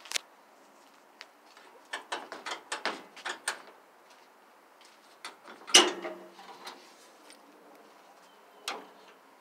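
Black metal tool box being opened: a quick run of sharp metal clicks and clacks from its latches and lid, then one loud metal clank about six seconds in that rings briefly, and a last clack near the end.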